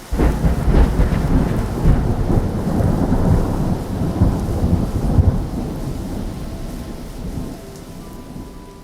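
A thunderclap sound effect: a sudden loud crack that rolls into a deep rumble and slowly fades, with a steady hiss of rain over it.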